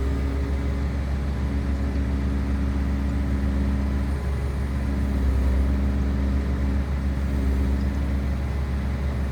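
Diesel engine of a Volvo ECR235DL tracked excavator running steadily at a constant speed, a deep even drone.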